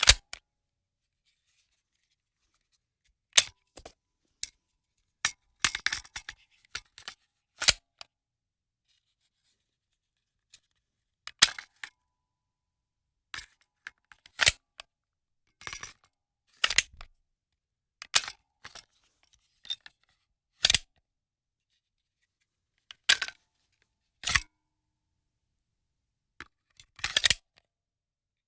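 Handgun magazine being loaded into the pistol, again and again: sharp metallic clicks and clacks, some single, some in short rattling clusters, about a dozen in all with silence between.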